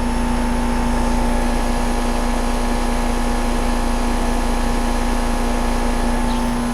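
A 2016 Trane XR16 2.5-ton outdoor air-conditioner unit running. Its scroll compressor makes a steady hum and its two-blade condenser fan adds a constant rush of air.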